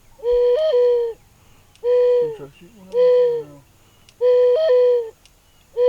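Mourning dove cooing: slow, low, hollow coos, five notes each just under a second long with about a second between them. The first note of each phrase swells up briefly in pitch, the 'coo-OO-oo-oo' pattern of the mourning dove song.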